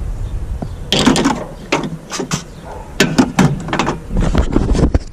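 Clicks and clatter of hand tools being handled in the engine bay, a ratchet and spark plug socket among them, in several short clusters.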